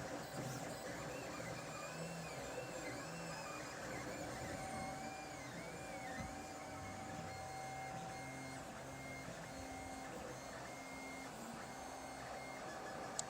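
Lulzbot TAZ 5 3D printer running, its stepper motors whining as the print head moves: the pitch sweeps up and down in quick arcs, then settles into steadier tones with short repeated notes. One sharp click near the end.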